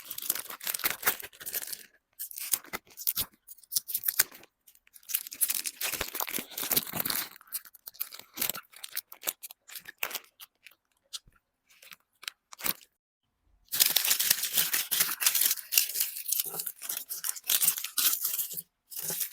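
Close-miked crackling and crunching of chocolate being unwrapped and eaten. It comes in bursts separated by short silences, with a sparse stretch in the middle and the loudest, longest burst in the last few seconds.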